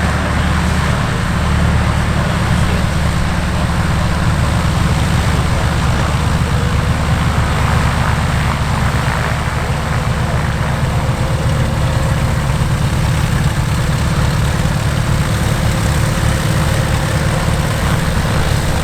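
Aircraft engine running at idle, a steady low drone with a fast, even pulsing beat.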